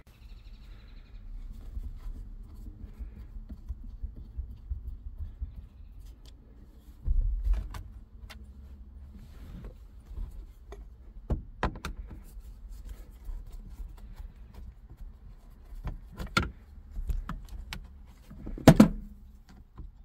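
Clicking, rattling and knocking of hands and a screwdriver working the plastic shifter console trim and boot loose inside a pickup's cab, over a low rumble of the camera being handled. A few sharper knocks, the loudest near the end.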